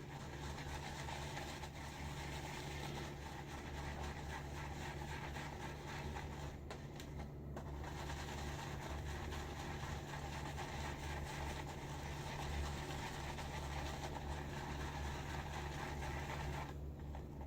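Silvertip badger shaving brush swirling shaving cream with a little water in a bowl, a continuous scratchy swishing as the lather is built up, still at the thick-paste stage.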